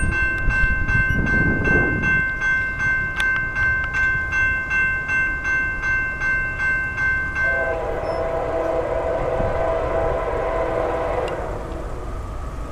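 A railroad crossing bell rings about twice a second. About eight seconds in it gives way to a CSX freight locomotive's horn sounding a long chord of several notes, which fades near the end.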